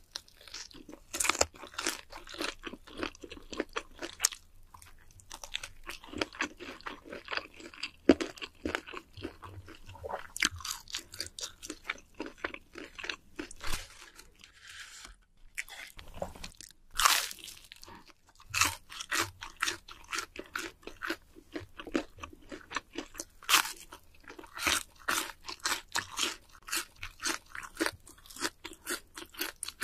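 Crunching and chewing of crispy fried chicken: rapid runs of sharp crunches with a few brief pauses.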